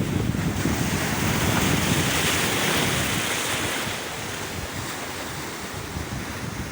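Sea waves breaking and washing up the shore, swelling to a hiss in the first half and easing off about four seconds in, with wind buffeting the microphone.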